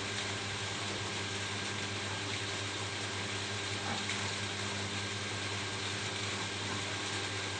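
Steady rain falling on a roof, an even hiss with faint scattered drop ticks and a low steady hum underneath.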